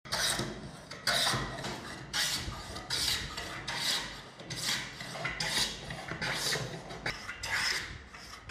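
Small hand-made wooden hand plane shaving a pine board in quick repeated strokes, about ten in all, a little over one a second.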